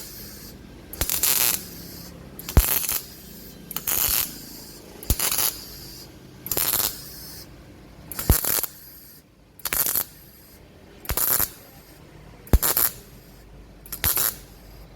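Gasless flux-core mini MIG welder stitch-welding thin steel box section: about ten half-second bursts of arc crackle, each starting with a sharp click, roughly one every second and a half.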